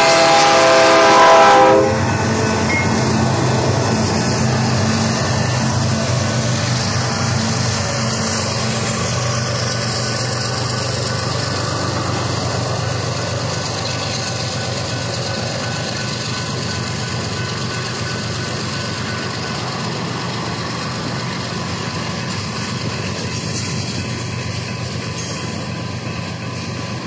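BNSF diesel freight locomotive's horn sounding and cutting off about two seconds in. Then the locomotives' engines running as they pass, fading through the middle, and covered grain hopper cars rolling slowly by with steady wheel-on-rail noise.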